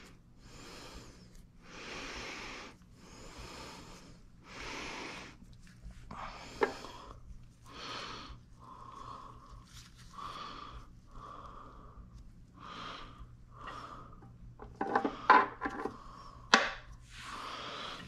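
A person breathing close to the microphone, a soft breath about every second. Near the end come a few sharp clicks and knocks from metal engine parts being handled.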